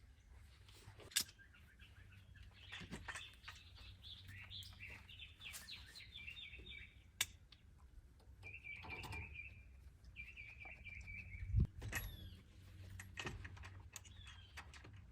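Birds chirping, with trilled phrases in the middle, and a few sharp clicks and one low thump about three-quarters through.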